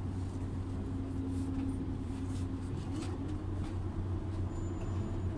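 Volvo Carrus N204 City bus heard from inside the cabin: a steady low drone of the engine and running gear, with a faint higher hum in the first half and a few light clicks and rattles.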